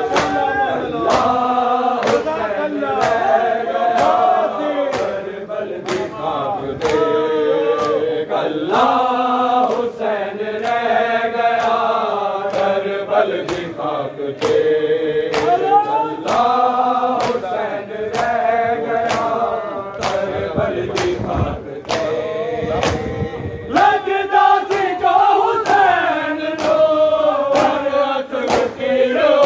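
A group of men chanting a Punjabi noha (Muharram lament) in unison, the melody rising and falling in long lines. Under it the mourners' hands strike their chests in matam, a steady, even beat a little more than once a second.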